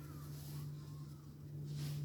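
Faint background with a steady low hum, a few faint arching calls, and a short rustle near the end.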